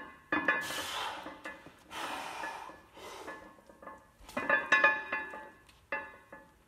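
Hard, forceful breaths of a lifter straining through repetitions of a heavy barbell bench press, one breath about every second, mixed with sharp metallic clinks and rattles of the iron plates and bar, which bunch up about four to five seconds in.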